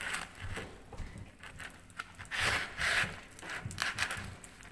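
Hands squishing and smearing thick shaving cream mixed with paint and popping candy, making irregular wet swishing and squelching sounds.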